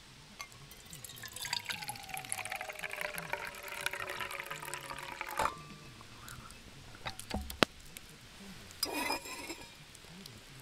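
Liquid poured from a kettle into a metal camping mug, a steady pour of about five seconds that stops abruptly.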